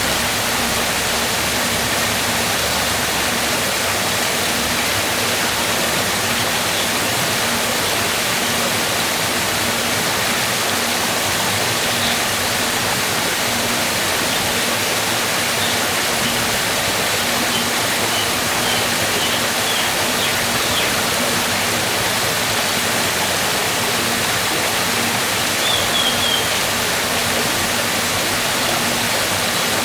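Waterfall rushing in a steady, dense roar of falling water, with a few faint high chirps about two-thirds of the way through and again near the end.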